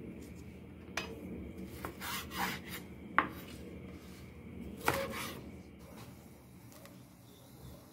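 Kitchen knife cutting crisp green lettuce on a bamboo cutting board: leaves rustling and crunching, with a few sharp knocks of the blade on the wood.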